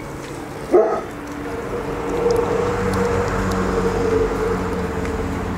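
Vegetable oil poured from a plastic bottle into a kazan, a steady pouring splash that builds slightly over a few seconds. A dog barks once, sharply, under a second in.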